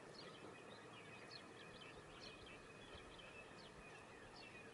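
Near silence, with faint birds chirping many short high chirps in the background.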